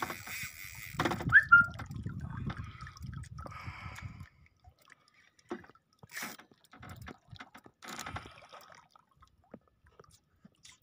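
Water sloshing and dripping against a small outrigger boat, louder in the first few seconds, with a brief squeak about a second in and scattered light knocks and clicks after.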